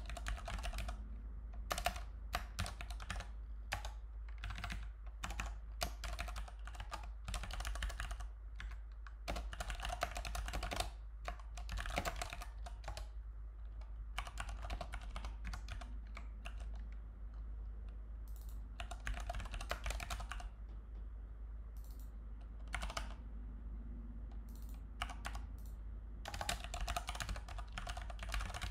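Typing on a computer keyboard: irregular runs of quick keystrokes with short pauses between them, over a steady low hum.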